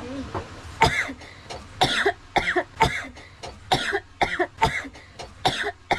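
A young woman coughing in a long fit: about a dozen short, harsh coughs, roughly two a second.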